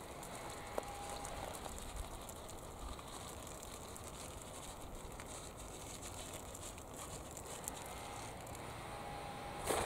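Faint scattered clicks and light rattles from a small hand-held shaker pot being shaken over plants, over a steady outdoor background hiss. A louder brief rustle comes just before the end.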